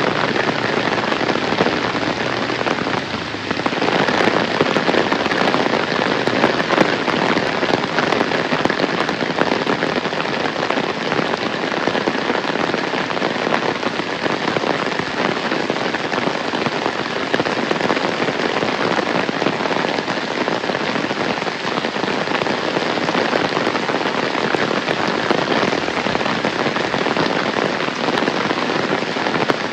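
Heavy rain falling steadily: a dense, even hiss of countless drops striking surfaces.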